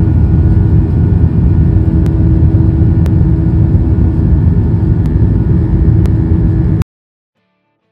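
Airliner cabin noise heard from a window seat: a loud, steady rumble of jet engines and airflow with a faint hum over it. It cuts off suddenly about seven seconds in.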